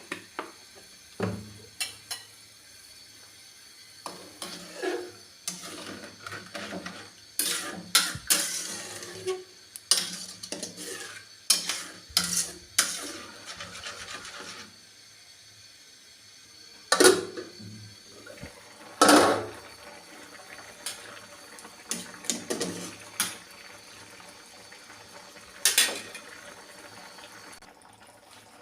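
Kitchen clatter: pots, dishes and metal utensils knocking and clinking in scattered strokes of uneven loudness, busiest between about 7 and 14 seconds in.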